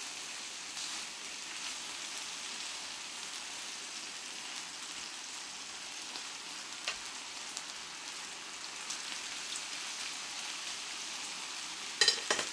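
Marinated pork belly slices sizzling in a cast-iron skillet with a steady hiss. A few faint ticks run through it, and a quick cluster of sharp knocks comes near the end.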